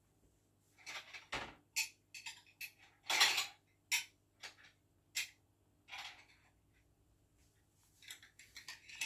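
Jar lids clinking and knocking as they are handled, in a dozen or so irregular clicks, the loudest a little over three seconds in.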